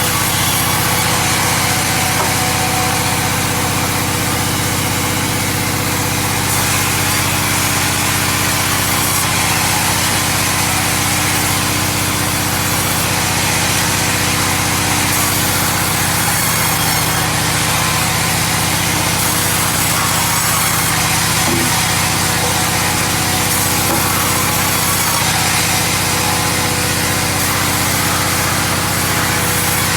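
Stihl two-stroke chainsaw running at steady high throttle while cutting through sengon wood, the cutting noise rising and falling every few seconds.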